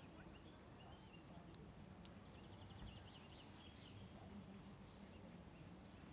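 Near silence: faint open-air background with a brief, faint run of quick high bird chirps about two and a half seconds in.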